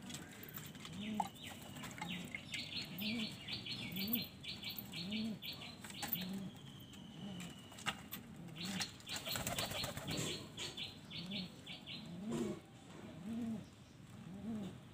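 Domestic pigeons cooing, a low rising-and-falling coo repeated steadily under a second apart. Twice a quick run of higher-pitched pulses sounds over the cooing.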